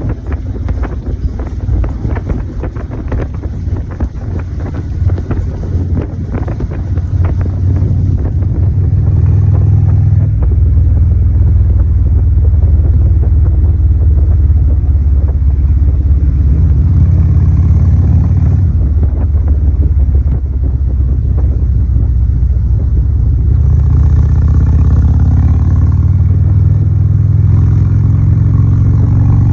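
A loud motor-vehicle engine running: uneven and pulsing for about the first ten seconds, then held at a steady higher speed, with its pitch rising a little near the end.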